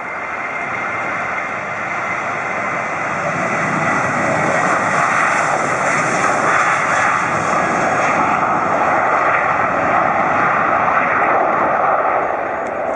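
Boeing 737's twin turbofan engines at takeoff thrust during the takeoff roll. A steady jet roar with a thin whine, growing louder over the first few seconds as the airliner passes and easing slightly near the end.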